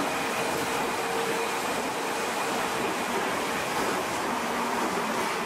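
Osaka Metro 21 series subway train pulling in along an underground platform and braking to a stop: a steady rush of wheel and running noise with a faint motor whine that falls in pitch as it slows.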